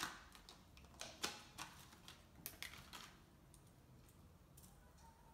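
Light plastic clicks and taps from a fidget spinner and its small box being handled, several in the first three seconds, then near silence.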